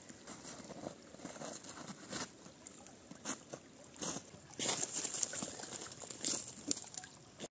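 Shallow creek water trickling, with scattered crackles and crunches that come thicker and louder in the second half.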